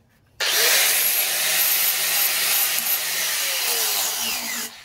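Angle grinder grinding on the metal body of an old bench vice. The grinding starts abruptly about half a second in, runs loud and steady for about four seconds, and cuts off near the end.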